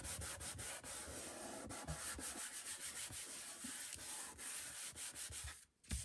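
Wadded towel rubbing freshly glued patterned paper flat onto cardstock: a continuous dry scratchy rubbing made of many quick strokes, breaking off briefly near the end.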